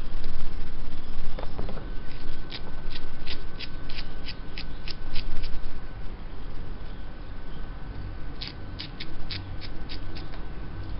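Two runs of quick, light clicks, about three or four a second: the first lasts a few seconds, the second comes near the end. A faint steady high tone runs beneath them.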